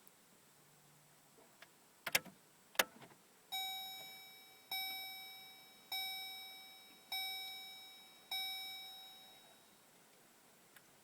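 Two sharp clicks, then a Chevy Colorado's dashboard warning chime sounding five evenly spaced, bell-like dings about a second and a bit apart, each fading away.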